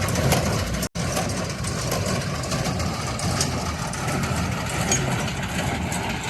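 John Deere 6120E tractor engine running as it powers a Ford 532 square baler through thick hay, a steady mechanical din with many short clicks and knocks from the baler, broken by a brief gap about a second in.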